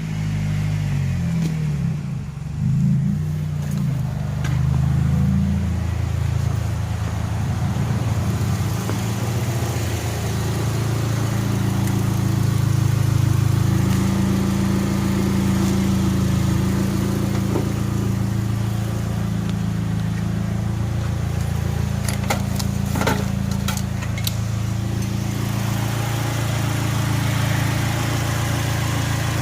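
1992 Plymouth Laser's 4G63 four-cylinder engine idling just after starting on freshly fitted reconditioned fuel injectors. The idle speed wavers for the first few seconds, then settles and runs steady, with a few light clicks about two-thirds of the way in.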